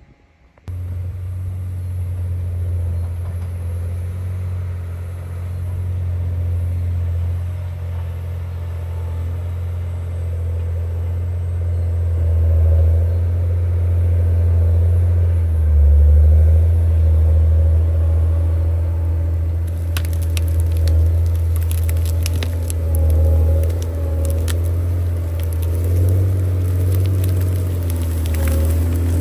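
John Deere 670 GP motor grader's diesel engine running, a steady low rumble that swells and eases; it cuts in abruptly under a second in. Over the last third, stones and gravel crackle and click under the machine.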